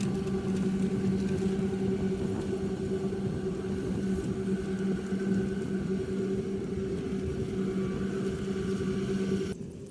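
Rice combine harvester running steadily with a constant droning hum, which cuts off abruptly near the end.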